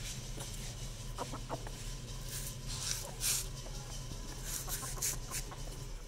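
Desi chickens clucking softly in short calls, with a few brief hissy, scratchy noises around the middle and later on.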